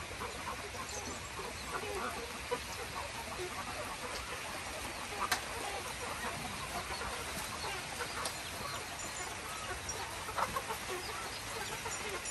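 Chickens clucking in short, scattered calls over a steady background hiss, with one sharp click about five seconds in.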